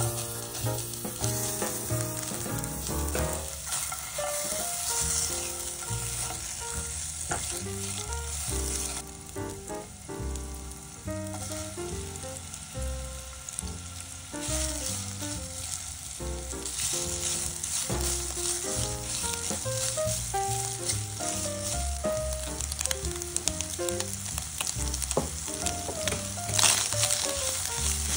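Food sizzling as it fries in a non-stick frying pan, the hiss swelling now and then, over background music with a melody and bass line.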